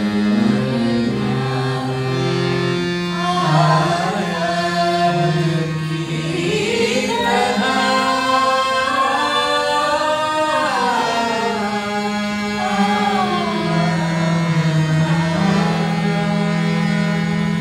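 Harmonium played with sustained chords under voices singing a slow melody in long held notes that glide from pitch to pitch.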